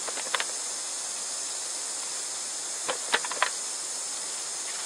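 Steady, high-pitched chorus of insects, with a few short crackles and clicks from cabbage leaves being handled: one near the start and a quick cluster about three seconds in.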